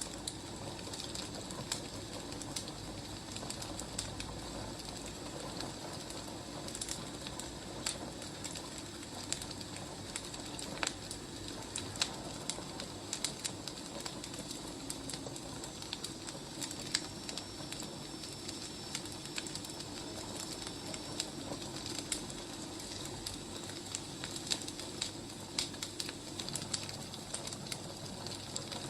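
Wood fire burning, with irregular sharp crackles and pops over a steady low rush.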